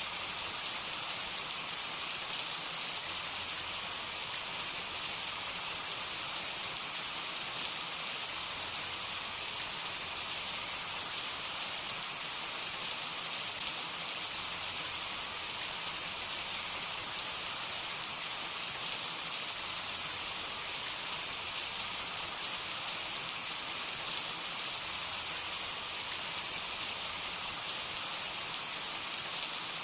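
Food sizzling in hot oil in a pan: a steady hiss with small scattered crackles.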